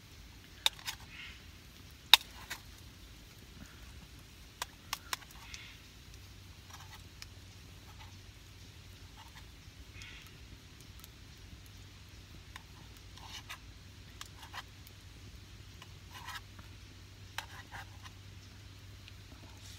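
Utensil clicking and scraping against camp cookware while eating, in scattered sharp clicks with soft scrapes between them. The loudest click comes about two seconds in.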